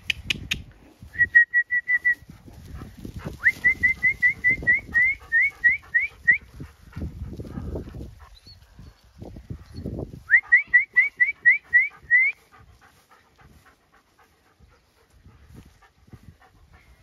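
A sheepdog whining in quick runs of short, high, rising squeals, about four a second, three times over, excited while working the sheep. Low rustling runs underneath.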